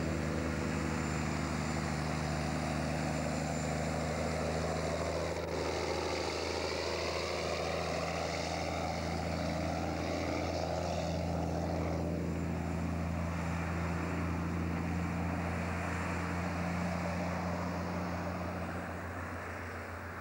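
Diesel logging truck and laden log trailer driving past on a bend, its engine running with a steady low drone. The tone shifts as it passes, about halfway through, and the sound fades as it pulls away near the end.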